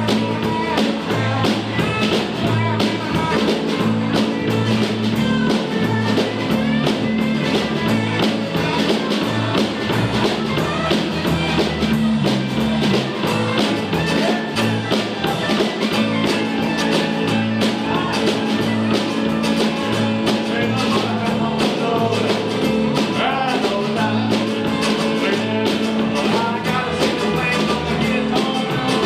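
Live rock and roll band playing, with guitar and a steady drum beat.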